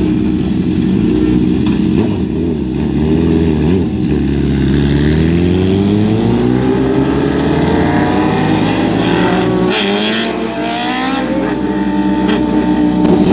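Sport motorcycle engine running, then accelerating hard away, its note climbing steadily through the revs, with a gear change about ten seconds in, over other bikes idling.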